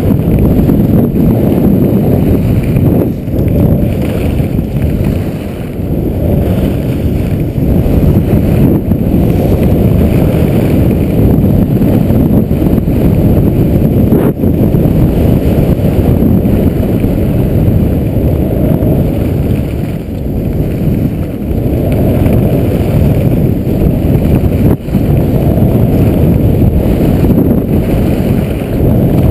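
Wind rushing over an action camera's microphone during a fast ski descent: a loud, steady low rumble that eases off briefly now and then, with a couple of short knocks.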